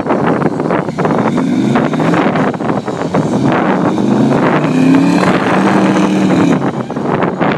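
Four-wheel-drive truck engine revving hard under load while pulling a stuck truck out of the mud. The engine climbs in several rising surges over rough, dense noise, then eases off about six and a half seconds in.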